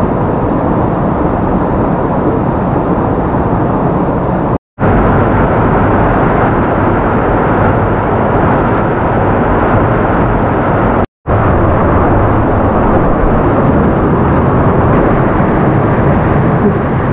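Waterfall swollen by rain: a loud, steady rush of heavy water flow, cut off twice by brief sudden silences, a little under a third and about two-thirds of the way through.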